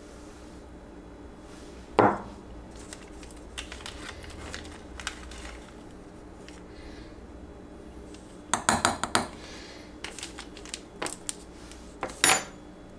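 Small metal measuring spoon and glass jars clinking: one sharp clink about two seconds in, a quick run of taps past the middle, and a few more clinks near the end.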